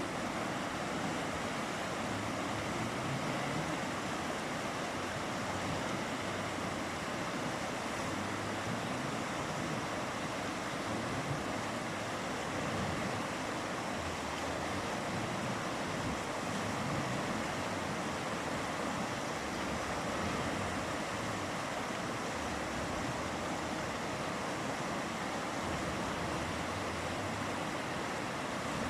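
A mountain river flowing and rushing, a steady, even roar of water.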